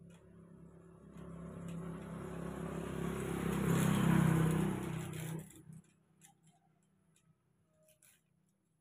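A motor vehicle's engine passing close by: it swells over a few seconds and fades off sharply about five seconds in. A few faint clicks follow.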